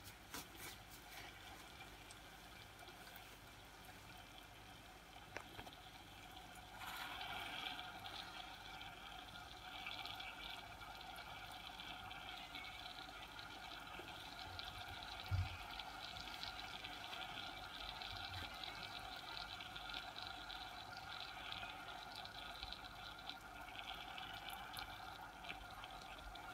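Hot water in a stainless steel pot on the stove, heating around a ball of ice, giving a faint steady hiss that grows louder about seven seconds in. There is a single soft low thump about halfway through.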